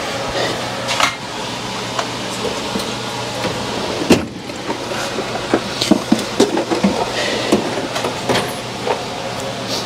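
Metal hand tools clinking and knocking, a ratchet and sockets being gathered, with one louder knock about four seconds in and a run of quick clinks after it, over a steady low hum.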